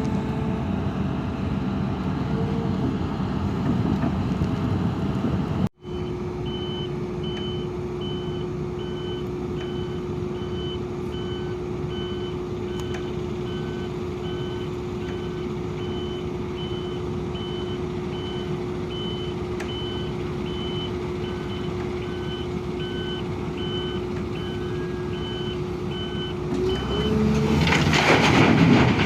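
Sumitomo SH350LC excavator's diesel engine running steadily, with a warning alarm beeping at a regular pace through most of it. Near the end the machine grows louder and noisier as it works harder.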